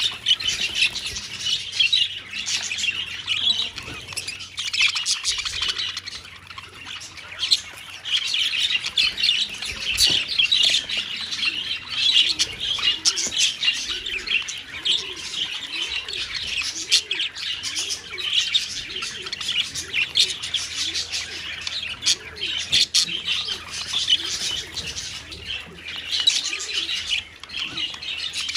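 A colony of budgerigars chattering and chirping all at once, a continuous warbling babble of many birds with sharp clicks mixed in.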